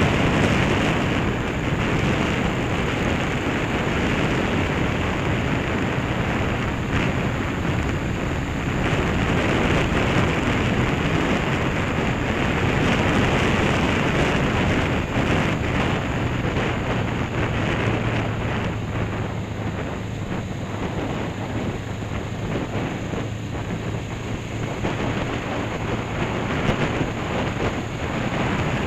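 Wind rushing and buffeting over the microphone of a Honda CB500 motorcycle cruising at a steady speed, with the parallel-twin engine's steady low hum underneath.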